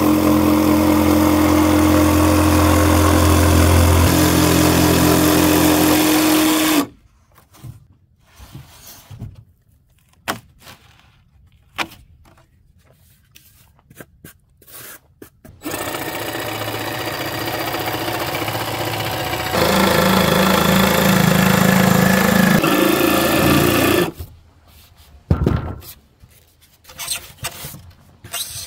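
Cordless jigsaw cutting through a polystyrene radiant-floor insulation panel, making pipe holes. It runs steadily twice, for about seven seconds and then about eight seconds with a change of pitch partway through. Short knocks from handling the foam panel come between and after the runs.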